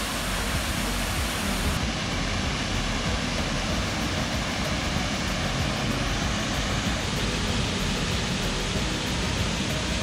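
A waterfall plunging into a rock pool: a steady, unbroken rushing of falling water.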